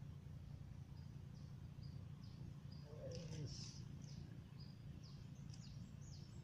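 Small birds chirping faintly in short, repeated high notes over a steady low background rumble, with a brief louder noise about three seconds in.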